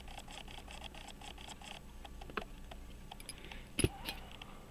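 Small metallic clicks and taps of watchmaker's tools handling a pocket watch movement, with one sharper click a little before four seconds in. Faint rapid ticking, about five a second, sounds underneath early on.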